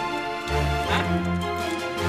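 Background music, with a bass line changing notes about every half second.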